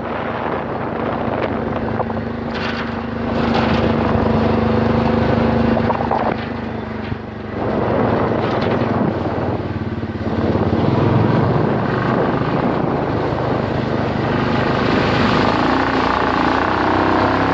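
An engine running steadily, with a dense rushing noise over it.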